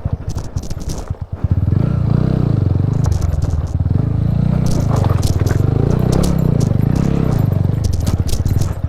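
Single-cylinder engine of a TVS Apache RTR 200 motorcycle ticking over, then from about a second and a half in pulling hard as the bike is ridden off-road, its pitch rising and falling several times. Scraping and clattering sit over the engine.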